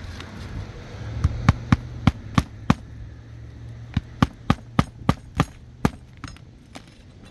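Hammer driving roofing nails to fasten a new asphalt shingle: two quick runs of about six or seven sharp blows, with a pause of about a second between them.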